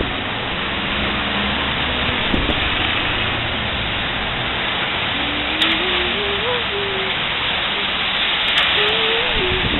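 Steady rush of wind and rain on a wet street, with wind buffeting the microphone. A person hums a soft, wandering tune about halfway through and again near the end.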